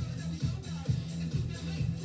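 Electronic dance music with a steady thumping beat, a little over two beats a second.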